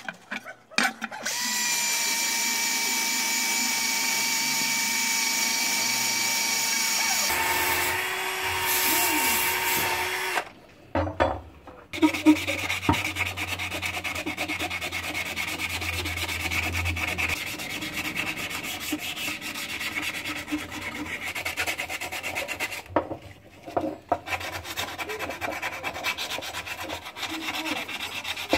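Drawknife blade being ground and sharpened. For the first several seconds a small power tool runs with a steady whine. After a couple of abrupt cuts comes continuous abrasive rubbing of the steel.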